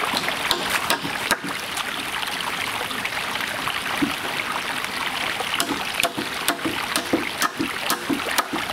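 Steady rushing background noise, like running water, with a few irregular sharp wooden knocks as the roof battens are handled.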